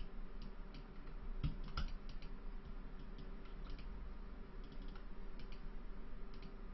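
Light, irregular clicks of a computer keyboard and mouse being used, over a faint steady hum.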